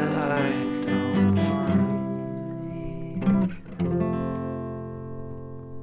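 Acoustic guitar strumming chords, the last one struck about four seconds in and left ringing and slowly fading.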